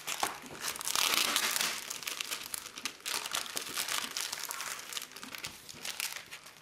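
Clear plastic packaging bag crinkling and crackling as hands open it and slide a planner cover out, loudest about a second in.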